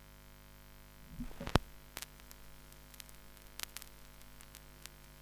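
Vinyl record surface noise in the lead-in groove before the first track: scattered clicks and crackle over a faint steady hum, with a louder click about a second and a half in.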